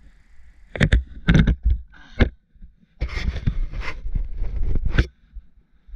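Stunt scooter on a concrete driveway during a bar spin attempt: a run of sharp clatters as the deck and wheels hit the concrete, then about two seconds of wheels rolling and scraping, ending in a final knock. The rider comes down with a foot on the ground, so the trick is not landed.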